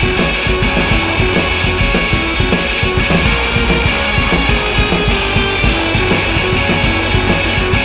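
Rock music with distorted electric guitar and drums at a steady driving beat.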